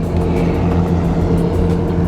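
A car engine running at a steady speed, a constant low drone.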